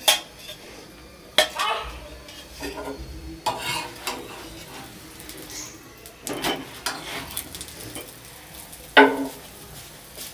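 A utensil scraping and clinking against an iron tawa while a paratha is oiled and flipped, over a light sizzle of frying. There are several sharp clatters, and the loudest comes near the end.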